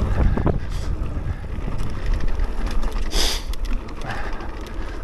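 Mountain bike descending a dirt trail at speed: wind rushing over the microphone and the rumble of tyres on the ground, with scattered rattles and clicks from the bike and a brief hiss a little after three seconds in.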